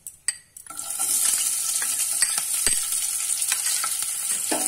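Thinly sliced onions tipped into hot refined oil in a kadai, the oil starting to sizzle within the first second and then frying steadily, with a few scattered clicks.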